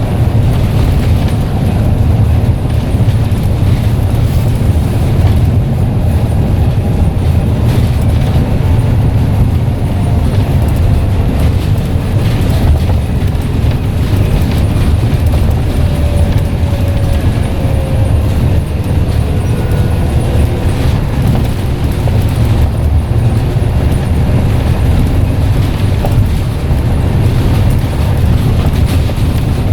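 Scania N94UD double-decker bus engine and drivetrain running under way: a steady, loud low rumble. About halfway through there is a faint whine that falls slightly in pitch.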